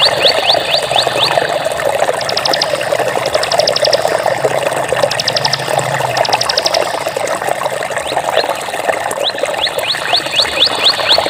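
Water flowing steadily. Over it come runs of short, high, rising chirps near the start and again near the end, and a few quick bursts of rapid high clicking in the middle.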